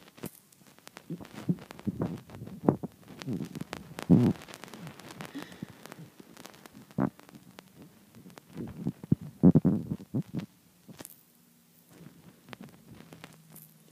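Irregular low thumps and knocks with scattered sharp clicks, in two louder clusters, the strongest a few seconds in and again near ten seconds; a faint steady hum comes in near the end.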